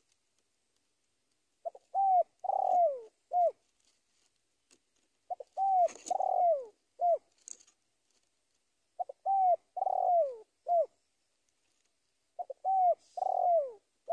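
Spotted dove (tekukur) cooing its territorial song, calling out to a rival: four phrases, each of a couple of short coos and a longer coo that slurs downward, repeated about every three and a half seconds.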